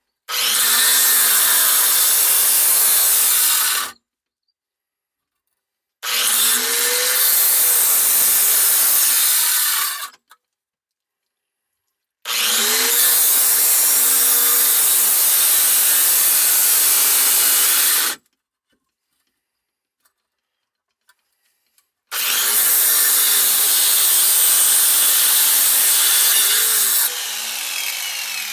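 Angle grinder with an abrasive cut-off wheel cutting through copper water pipe, in four runs of a few seconds each with silence between. Its motor pitch sags and recovers as the disc loads up in the cut. Near the end it comes off the pipe and winds down.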